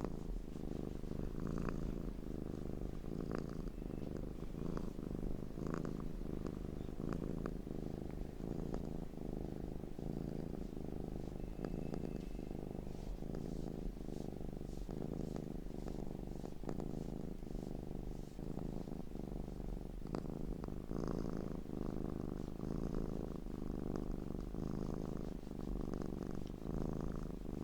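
A domestic cat purring continuously and closely, low and finely pulsing, with faint scattered crackles of a wood fire above it.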